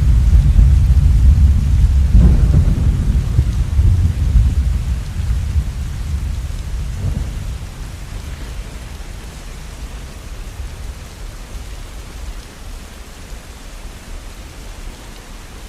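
Rolling thunder over steady rainfall: a deep rumble, with a sharper crack about two seconds in, dies away over the first half, leaving the even hiss of rain.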